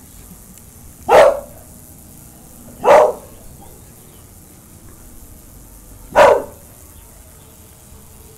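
Boxer dog barking three single loud barks, the second about two seconds after the first and the third about three seconds later.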